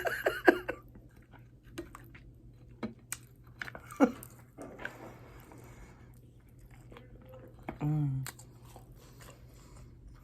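Close-miked chewing and biting on hot chicken wings: scattered wet mouth clicks and smacks, with a brief hummed voice sound about eight seconds in.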